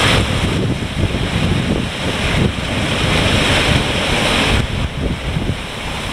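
Sailboat rushing through open-ocean waves: the water hisses and foams along the hull, with wind buffeting the microphone in a low rumble. The hiss surges and eases with the waves, dropping back about four and a half seconds in.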